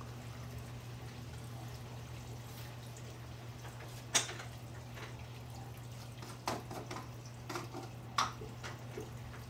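Running reef aquarium: steady trickling and dripping of circulating water over a constant low pump hum. A few sharp clicks and knocks come about four seconds in and again toward the end.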